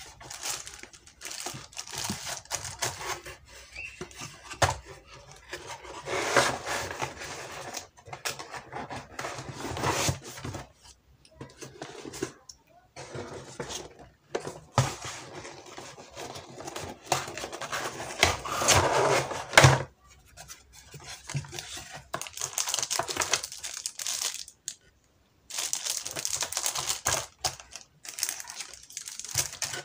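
Clear plastic wrapping and a cardboard box rustling and crinkling as hands unpack and handle the contents, in irregular bursts with brief pauses.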